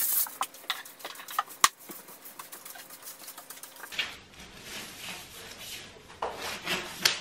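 Scattered small clicks and taps, one sharper than the rest about a second and a half in. From about four seconds, plastic crinkling and rustling as a roll of self-adhesive vinyl film is handled and unrolled.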